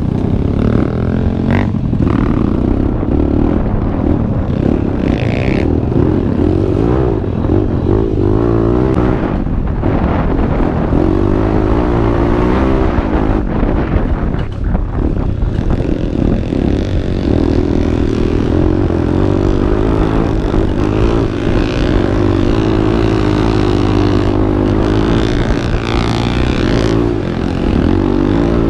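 Dirt bike engine running under changing throttle, its pitch rising and falling over and over.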